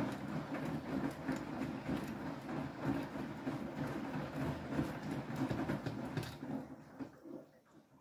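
Beko WTK104121W washing machine drum turning fast with a wet load, water and clothes sloshing and tumbling against the drum in its fast Powerstream wash action. The churning dies away over the last second or so as the drum slows.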